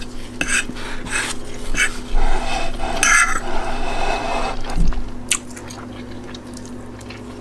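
Eating sounds: a run of short clicks and mouth noises, then a rough scraping stretch, as of chewing with a utensil working the plate of rice, egg and gravy.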